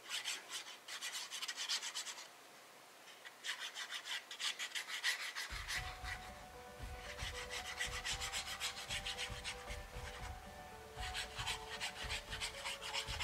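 Cardstock rubbing and scratching in the hands as liquid glue is run onto its back from a fine-tip squeeze bottle: faint dry crackly scraping, pausing briefly about two seconds in.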